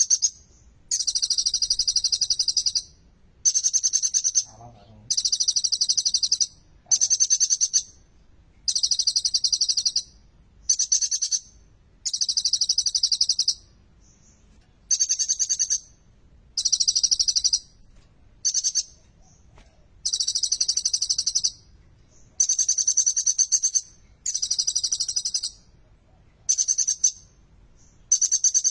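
Kolibri ninja (a sunbird) singing a fast, high-pitched twittering song in repeated bursts of one to two seconds, with short pauses between them.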